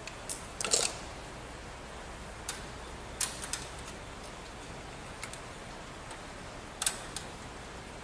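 A few sharp clicks and taps of hands and tools working wiring at the terminal blocks of a fire alarm control panel's metal cabinet. The loudest is a short cluster just under a second in, and another comes near the end.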